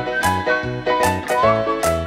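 Cheerful background music: a whistled tune gliding between notes over a bouncy bass line and light chords.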